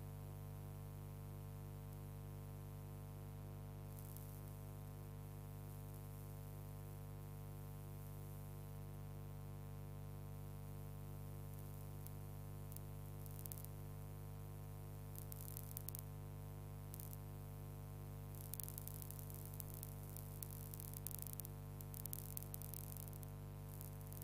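Steady electrical hum with a stack of overtones, unchanged throughout, with crackles and clicks from about four seconds in that grow dense over the last several seconds.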